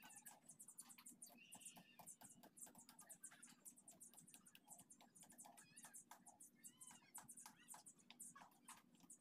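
Near silence with faint, rapid high-pitched chirping and ticking from small birds, and a few short chirping calls now and then.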